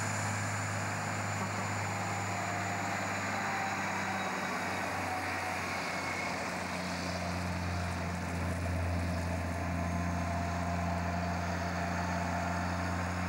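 Logging truck's diesel engine running at a steady pulling speed, a constant low drone over road and tyre noise.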